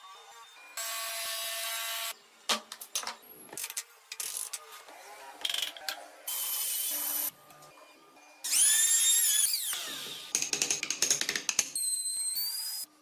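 Short bursts of woodworking power tools cutting and shaping wood, one after another with abrupt breaks between them. About eight and a half seconds in, a motor whines up in pitch and then falls away. A hand-held trim router is among the tools.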